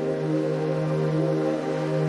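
Slow ambient music: soft held tones that swell and fade over a steady low drone.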